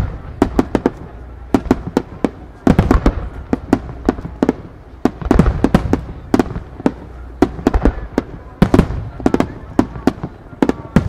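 Aerial firework shells bursting in a rapid barrage: dozens of sharp bangs at uneven spacing, bunched in dense clusters about three, five and nine seconds in, over a continuous low rumble.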